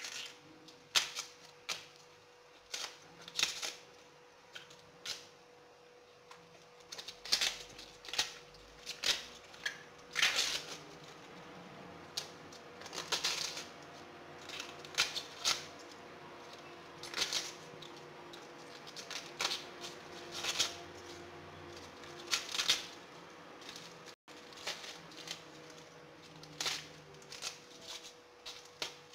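Tough outer leaves of a globe artichoke snapped off by hand one at a time: irregular crisp snaps, one or two a second, over a faint steady hum.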